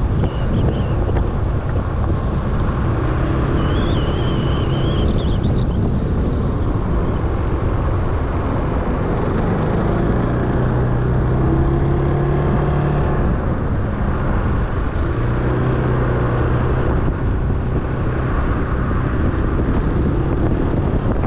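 Wind buffeting the microphone over the steady low rumble of a moving vehicle, with an engine drone that swells a couple of times midway.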